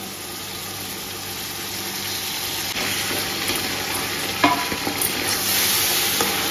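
Ground green masala paste sizzling as it hits hot ghee and oil over frying onions, the sizzle growing louder over the first few seconds as it is stirred in with a wooden spatula. A sharp knock of the spatula against the metal pot comes about four and a half seconds in.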